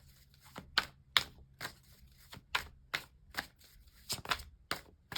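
Tarot cards being shuffled by hand: a string of short, crisp card snaps and slaps, about two or three a second, uneven in strength.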